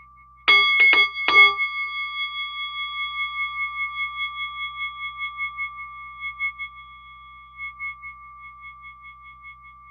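A bell-like chime struck three times in quick succession, then ringing on as a sustained tone that wavers slowly and gradually fades.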